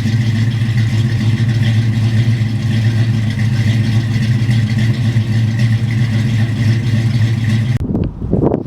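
A 1971 Chevrolet K10 pickup's engine idling steadily with an even, unchanging low hum. Near the end it gives way abruptly to uneven, gusty noise.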